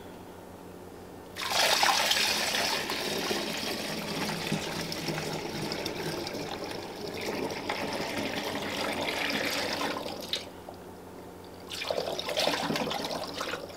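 Dandelion wine must pouring from a stainless steel pot through a plastic funnel into a glass gallon jug. A long steady pour starts about a second and a half in and stops near 10 seconds, then a second, shorter pour comes near the end.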